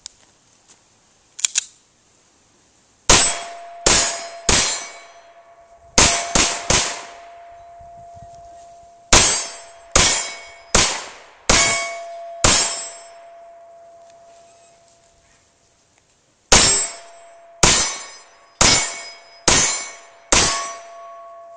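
Handgun fired in four quick strings of three, three, five and six shots, each shot met by the clang of a hit steel target. The steel rings on with a steady metallic tone that fades over a few seconds between strings.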